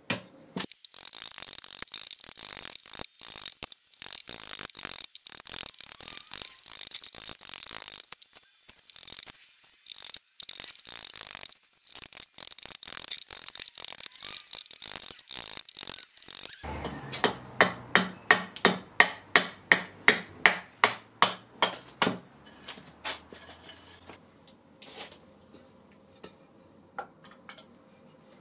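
Hatchet chopping and hewing a green-wood spoon blank on a chopping block, in rapid close strokes. About two-thirds of the way through come louder, evenly spaced chops, about four a second for several seconds, then a few scattered quieter knocks.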